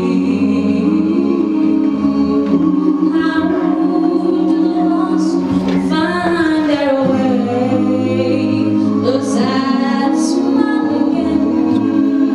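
Small a cappella gospel vocal group of women's and men's voices singing in close harmony into microphones, low parts held steady under a moving upper melody.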